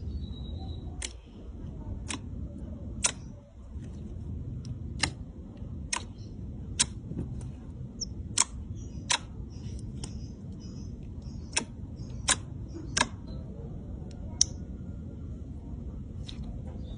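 Confetti slime being squeezed and poked by hand, giving sharp popping clicks as air pockets burst. There are about a dozen of them, irregular and roughly one a second, over a low steady background hum.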